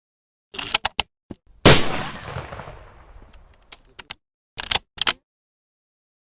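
A single loud gunshot with a long echoing tail that dies away over about two seconds, set between short bursts of sharp clicks before and after it.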